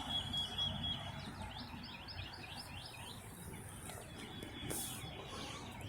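A small bird calling a quick run of about seven repeated high chirping notes, faint over low outdoor background noise.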